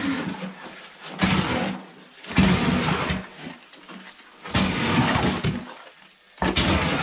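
Cement mortar being spread and worked on a floor: four long scraping strokes, each about a second, at a slow steady pace.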